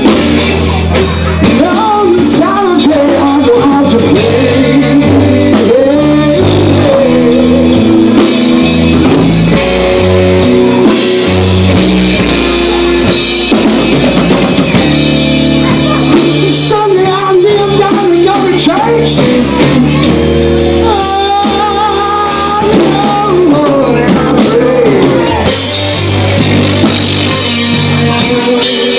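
Live rock band playing loudly on electric guitar, bass and drum kit, with a lead line that bends and wavers in pitch over a steady bass line.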